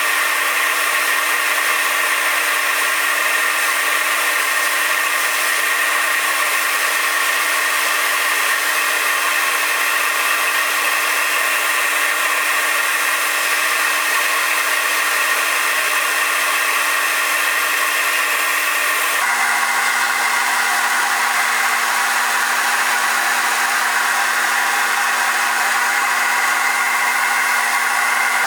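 Metal lathe running steadily while turning down a ground-rod bar, a constant motor hum over a hiss. About two-thirds of the way through, the hum drops abruptly to a lower pitch.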